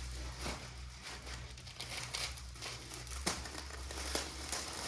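Plastic packaging crinkling and crackling as it is handled and unwrapped, with irregular rustles and a sharper click a little past three seconds in.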